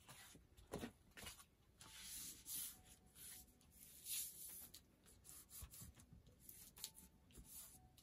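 Faint rustling and soft taps of paper pages and a fabric strip being handled, slid and pressed down on a cutting mat, in short scattered bursts.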